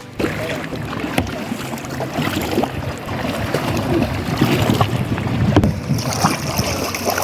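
Paddling a small boat: irregular splashing of paddle strokes in the water, with scattered short knocks.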